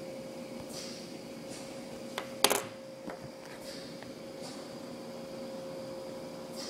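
Quiet room tone with a steady faint hum. About two and a half seconds in, a sharp click and then a louder short rattle of handling noise as the hand-held camera is moved.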